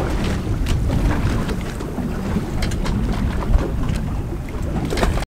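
Wind buffeting the microphone over the wash of choppy sea along a boat's hull, with a few light clicks.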